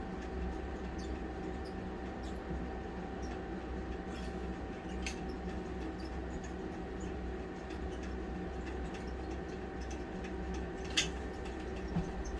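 Steady mechanical hum with constant tones, with faint scattered clicks from a caulking gun being squeezed as construction adhesive is run along wooden floor joists. A sharper click comes near the end.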